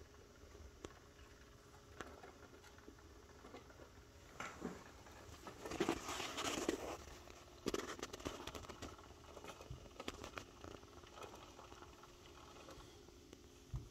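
Faint rustling and scattered light taps, with a louder rustle about five to seven seconds in, over a faint steady hum.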